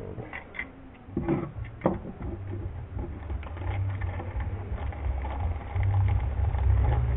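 A small paper parts packet rustling and crinkling as it is unfolded and unwrapped by hand, with a few sharp clicks in the first couple of seconds. A low rumble runs underneath, stronger in the second half.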